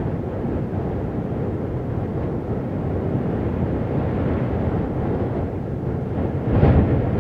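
Steady rushing noise like wind, swelling briefly about six and a half seconds in.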